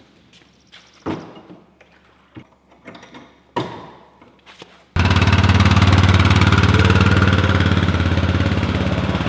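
A couple of sharp clanks as a sprayer cart is hooked onto a four-wheeler's ball hitch. About five seconds in, a utility ATV engine cuts in suddenly and runs loudly and steadily as the quad pulls away towing the sprayer.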